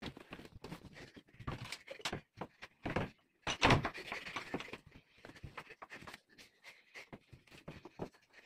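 A quick, irregular run of light knocks and thuds from a door and from things being moved around a room, thinning out after about five seconds.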